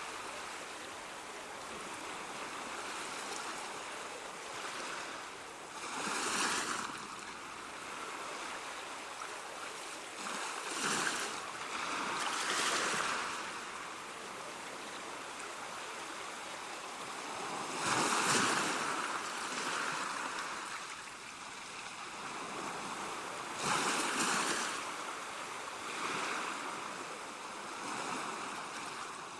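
Ocean waves breaking and washing ashore, with a steady rush of surf between louder surges every few seconds.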